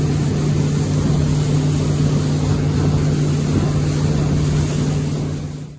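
A small boat's motor running steadily under way: a constant low drone with an even hiss over it. It cuts off suddenly near the end.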